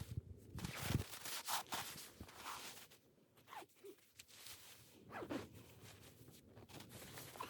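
A series of short, rasping swishes, several in a row with a quieter gap midway, like gear or clothing being handled close by.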